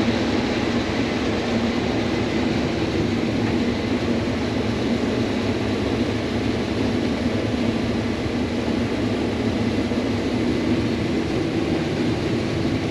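Combine harvester running steadily while harvesting corn, an even, unbroken mechanical noise with no change in speed.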